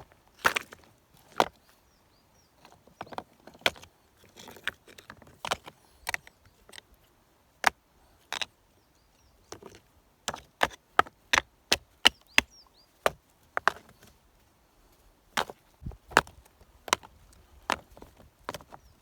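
Wood being chopped by hand: a series of sharp, short blows of a blade into wood, coming at an uneven pace, sometimes several in quick succession and sometimes with a second or more between them.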